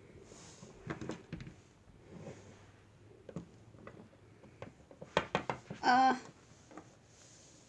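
Light clicks and taps of small plastic toy figures being handled and set down on a surface, with a cluster of quick clicks about five seconds in. Just after that, a short wavering hum-like vocal sound.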